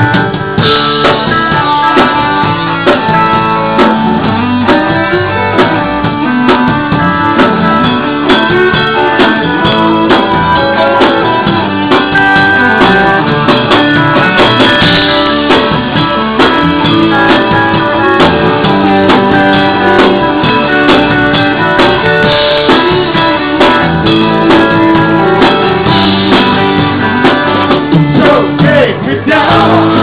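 Live band playing an instrumental break of a country-rock song, electric guitar to the fore over bass and drums.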